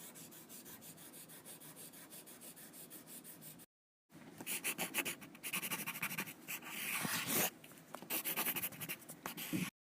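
Rapid scratching and rubbing, in two separate takes: the first steady and fainter, made of fast fine ticks; the second, after a short cut to silence, louder and more uneven.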